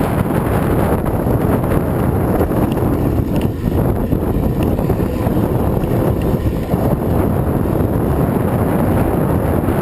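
Steady wind buffeting the microphone of a moving vehicle: a dense, even rushing noise with no clear engine note.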